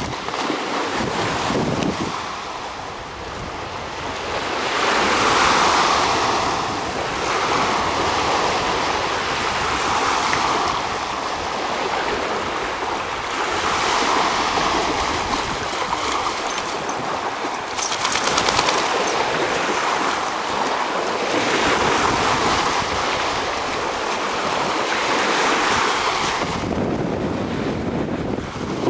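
Lake Michigan waves washing onto the shore, a rushing noise that swells and fades about every four seconds, with wind buffeting the microphone.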